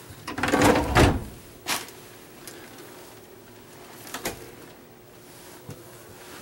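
A deep wooden drawer in a motorhome's bedroom cabinetry slides on its runners and knocks to a stop in the first second, followed by a sharp knock. About four seconds in, a wooden closet door's latch clicks as the door is opened.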